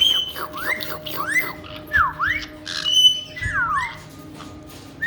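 Pet caique parrot whistling, a run of about five quick rising and falling whistles mixed with short harsh chirps.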